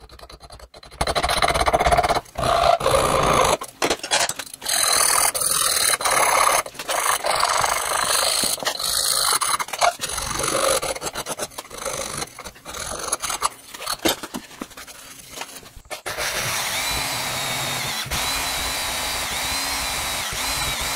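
Hand file strokes rasping across a sand-cast metal carburettor scoop held in a vise, uneven strokes with short pauses. About sixteen seconds in, a small power tool starts and runs steadily with a constant whine, cutting off the casting's sprue.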